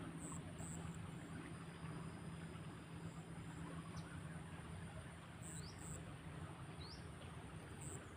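Outdoor insect and bird ambience: a steady high-pitched insect drone, with two short rising bird chirps near the end. A steady low hum sits underneath.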